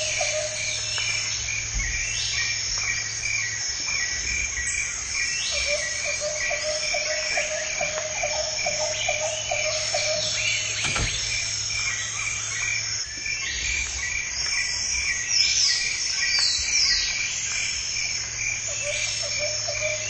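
Jungle ambience of chorusing insects: a high chirp pulses steadily throughout. A lower frog-like trill comes and goes in stretches of several seconds, and higher falling calls repeat every few seconds over a steady low hum.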